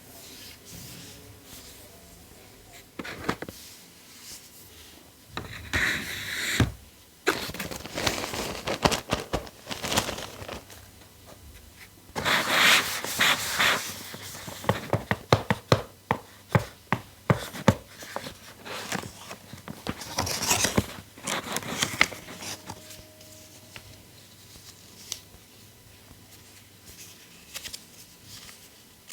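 Handling noises from unboxing a tablet: irregular rustling and scraping of packaging, with sharp clicks and taps. The handling is busiest from a few seconds in until near the end, when it becomes sparse.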